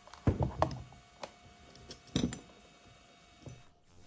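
A few sharp knocks and clicks of parts being handled as the base plate is pulled out of the motor box, four distinct strikes, the loudest near the start.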